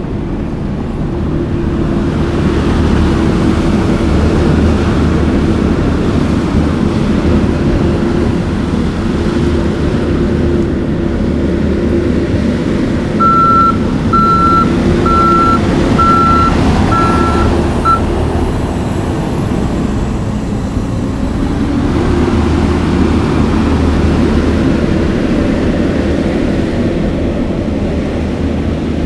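Kioti skid steer's diesel engine running steadily under load as the machine works, with its backup alarm beeping about six times in a row near the middle as it reverses.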